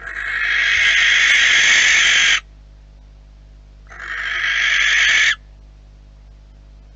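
Barn owl giving two long, harsh screeches. The first lasts over two seconds and the second, starting about four seconds in, is shorter. Each swells and then cuts off abruptly.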